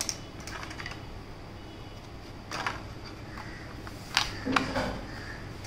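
Clear plastic blister tray of an M.2 SSD being handled: a few scattered plastic clicks and crackles, the sharpest about four seconds in, over a steady low hum.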